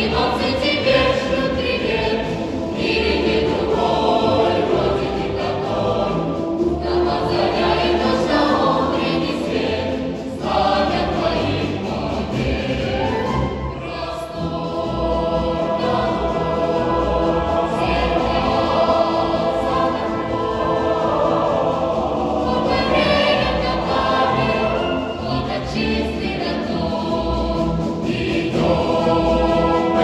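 Choir of children and military-music-school cadets singing a march, accompanied by a military concert band with a steady low beat under the voices.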